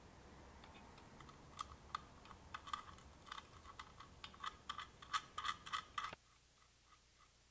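Quick, irregular small metallic clicks and ticks as fingers spin the nut onto the threaded SMA antenna connector of the aluminium case, thickest in the middle and stopping abruptly about six seconds in.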